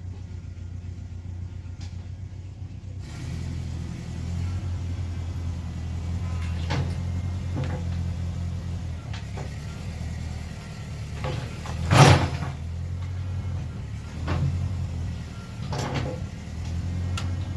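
Tractor engine running steadily, picking up about three seconds in, with several sharp knocks and clanks over it; the loudest clank comes about twelve seconds in.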